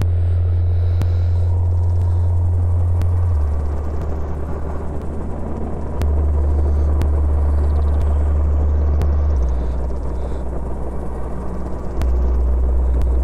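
Ambient noise soundtrack: a loud, low droning hum that shifts down in pitch in steps every few seconds over a rumbling hiss, with faint sharp ticks about once a second.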